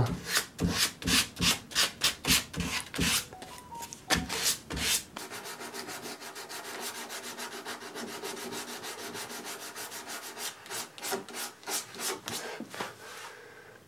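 Sandpaper rubbed by hand over a carved wooden frame: quick back-and-forth strokes, about three or four a second, then softer, quieter rubbing from about five seconds in, with firmer strokes again near the end.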